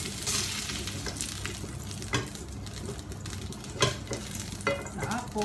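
Marinated beef slices sizzling in oil in a nonstick frying pan. A plastic spatula clicks and scrapes against the pan a few times as the cooked pieces are turned and lifted out.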